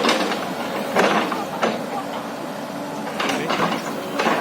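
Hyundai hydraulic excavator at work: the engine runs steadily under sharp metallic clanks and squeaks from the digging gear. There are knocks right at the start, about a second in, and again around three seconds in.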